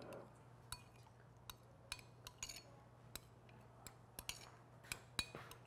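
A metal spoon stirring a thick sauce thinned with water in a small bowl, clinking faintly and irregularly against the bowl's sides.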